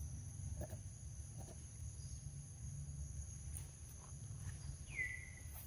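Faint, steady, high-pitched drone of insects in the forest, over a low rumble. About five seconds in comes one short squeak that falls in pitch.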